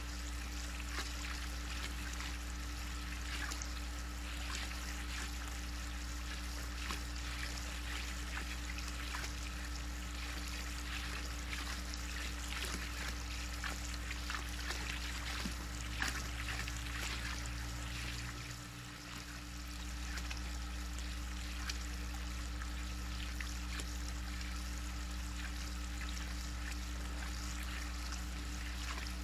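Water trickling and lapping in a backyard spa, with many small splashes and ticks as a raccoon wades and dabbles at the edge, over a steady low hum.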